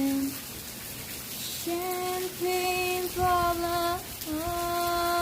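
A solo singing voice, unaccompanied, over a steady patter of rain. A held note ends right at the start, leaving about a second and a half of rain alone. Short sung phrases follow, then a long held note from about four seconds in.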